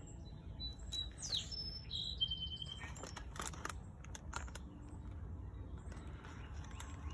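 Birds chirping in the background: a few short, high calls, one of them falling in pitch, in the first couple of seconds. Several sharp clicks of handling follow about three to four and a half seconds in, over low steady outdoor noise.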